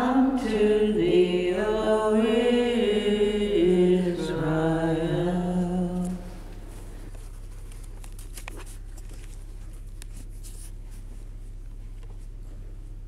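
A woman's solo voice singing a slow hymn phrase unaccompanied, ending on a held low note about six seconds in. After that only faint clicks and rustling as she moves away from the lectern.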